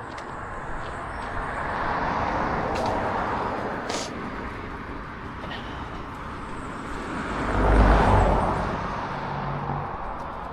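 Cars driving past on a street: one goes by about two seconds in, and a louder one with a low rumble passes about eight seconds in.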